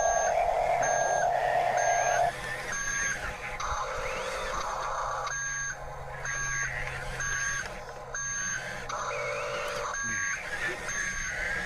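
Reversing-beep sound effect from a remote-control toy construction vehicle, beeping about once a second. A steady electric motor whine runs under it and stops about two seconds in.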